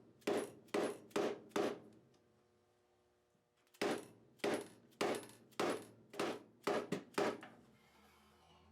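Fret hammer tapping fret wire down into a guitar fingerboard slot: a run of about five sharp metallic taps, each ringing briefly, a pause, then about eight more.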